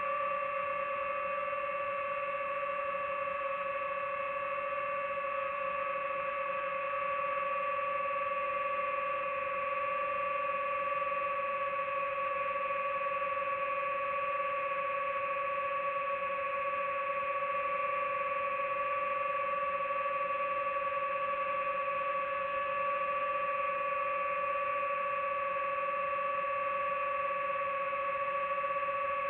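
Multirotor drone's motors and propellers humming steadily at a constant pitch while hovering, heard from on board.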